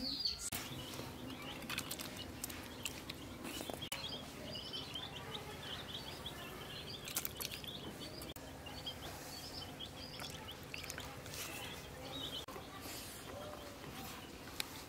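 Small birds chirping intermittently in the background, many short high chirps over a steady rural ambient hum, with a few faint clicks.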